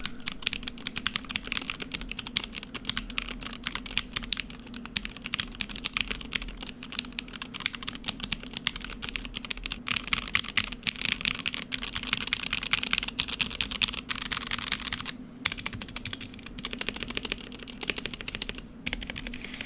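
Typing test on a Womier K87 mechanical keyboard with a stacked-acrylic case, fitted with milky yellow switches and only partly lubed stabilizers: fast, continuous keystrokes with two brief pauses toward the end. The sound is too muted, and the stabilizers are not good, needing to be removed and lubed properly.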